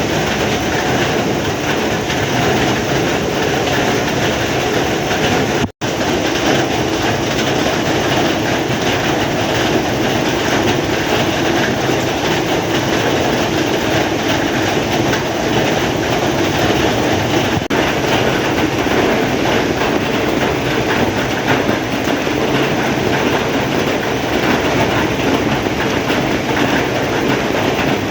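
Heavy rain falling steadily, a dense unbroken hiss. The audio drops out for an instant about six seconds in.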